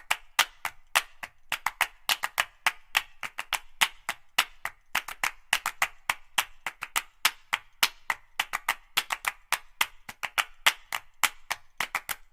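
A fast, uneven run of sharp claps or knocks, several a second, with no steady beat.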